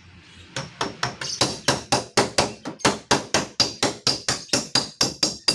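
Rapid, even hammer taps on a car door's sheet-metal panel, about four to five blows a second, each with a high metallic ring: panel-beating out a dent. The tapping starts about half a second in.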